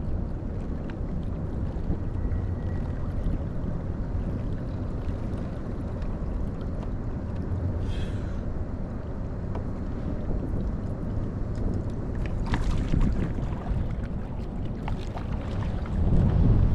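Wind buffeting the microphone on open water: a steady low rumble, with a brief hiss about eight seconds in and a few light clicks later on.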